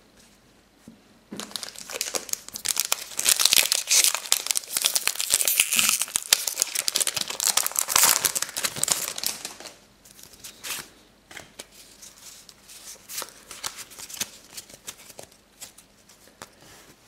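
A Pokémon trading card booster pack's foil wrapper being torn open, crinkling loudly for about eight seconds, then quieter rustling and scattered clicks.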